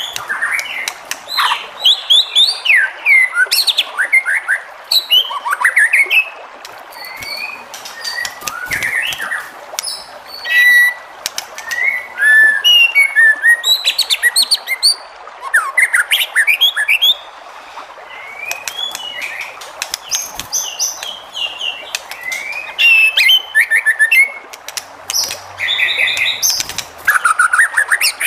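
White-rumped shama (murai batu) singing a varied song of clear whistled phrases, fast note runs and chattering notes, broken by short pauses.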